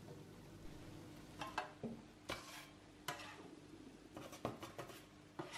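Metal spatula scraping and tapping on a baking tray, several short scrapes and clicks, as baked puff pastry shells are lifted off the tray, over a faint steady hum.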